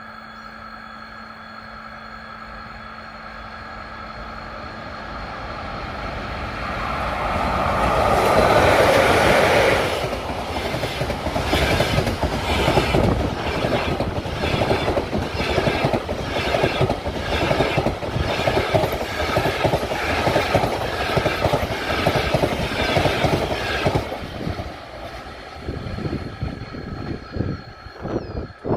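ChS6 electric locomotive and its double-decker passenger train passing at speed. A rising rush swells to its loudest as the locomotive goes by about eight to ten seconds in. Then the carriages' wheels clatter in an even rhythm for about fourteen seconds, fading away near the end.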